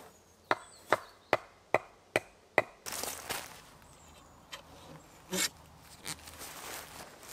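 Six sharp knocks in a quick even series as a forged metal lantern-holder stake is driven into the ground, followed by a scraping rustle as the holder's upper rod is slid into the stake's tube socket, and a single clunk about five seconds in.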